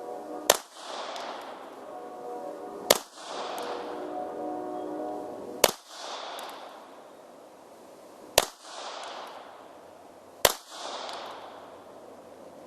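Bulgarian Makarov pistol firing 9x18mm rounds at a target: five single shots spaced about two to three seconds apart, each followed by a short fading echo.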